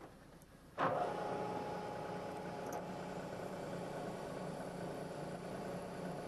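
Milling machine starting up abruptly about a second in, then running steadily with a constant hum and whine as its spindle turns a drill bit.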